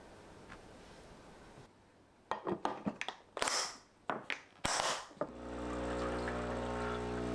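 Several sharp clatters and scrapes of kitchen things being handled, then a steady electric hum of an appliance that switches on about five seconds in and holds an even pitch.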